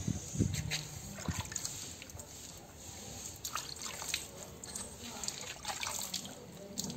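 Water dripping and splashing onto concrete from a soaked, soapy Lhasa Apso being washed by hand, in irregular drips and small splashes.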